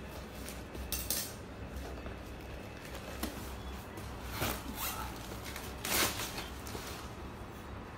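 Gift-wrap paper and packaging rustling and crinkling as a wrapped box is opened by hand, with short louder rustles or rips about one second, four and a half seconds and six seconds in.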